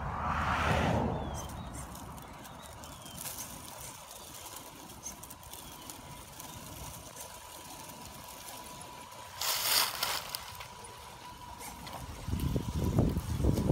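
Radio-controlled Axial SCX10 scale crawler creeping up a bank of dirt and dry leaves, its electric motor giving a faint steady whine. A brief hissing crunch comes about ten seconds in, and low rumbling buffets come near the end.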